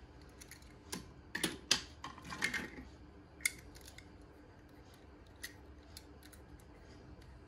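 Scattered soft clicks and light knocks of small die-cast toy cars being handled and turned over in the fingers, a few louder clicks in the first half.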